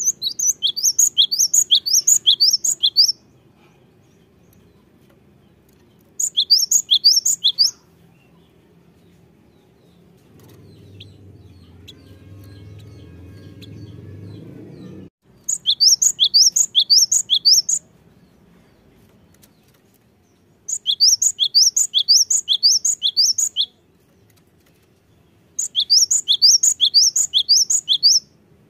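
Cinereous tit (gelatik batu) singing five quick runs of high, repeated two-note phrases, each run lasting two to three seconds with pauses between. A quieter low rumble sounds in the middle and stops suddenly.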